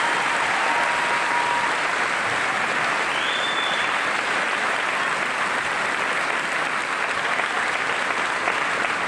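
Audience applauding, a steady round of applause.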